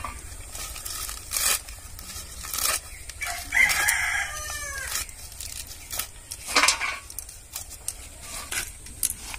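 A rooster crows once, about three and a half seconds in. Around it come crisp snaps of spinach stems being cut through on a bonti, an upright blade fixed in a wooden base.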